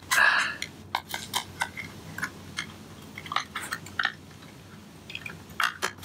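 Scattered small clicks and taps of a Samsung 860 EVO SSD and its SATA connector being handled and pressed into a 2012 MacBook Pro's drive bay, with a short rustle at the start.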